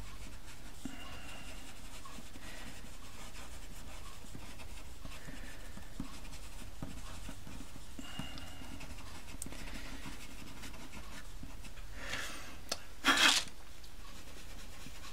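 Pastel pencil scratching lightly across textured pastel paper in short, soft strokes, with the pencil point laid flat to the paper. A short, louder whoosh of noise near the end.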